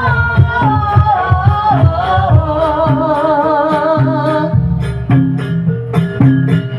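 Jaranan band music: a singer draws out a long 'oh' with a wavering vibrato for about four seconds over steady drumming and percussion, which then carry on alone.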